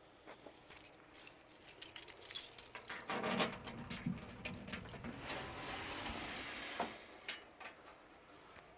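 Metallic jingling and clinking with a busy run of sharp clicks, loudest in the first half and dying away near the end.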